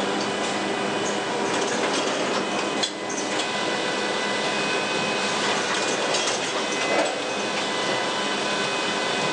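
Bookbinding line machinery running: the Muller Martini SigmaTower conveying glue-bound book blocks, a steady mechanical clatter and whir with a few steady whining tones and scattered clicks.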